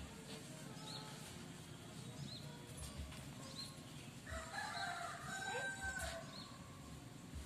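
A rooster crowing once, a call of about two seconds beginning about four seconds in, with short high chirps repeating about every second and a half.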